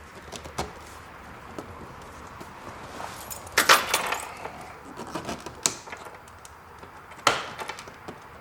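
Hard clicks and clattering of hand tools and plastic trim parts being handled while the headlight switch panel is worked loose from a Porsche 986 Boxster dashboard. A loud burst of rattling comes about three and a half seconds in, with sharp single clicks near six and seven seconds.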